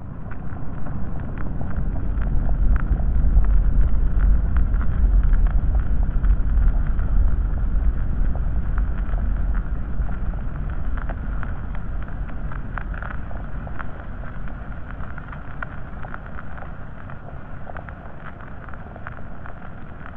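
A deep, low rumble in an ambient soundscape built from field recordings. It swells up over the first three seconds and then slowly dies away, with faint crackles and a thin hiss above it.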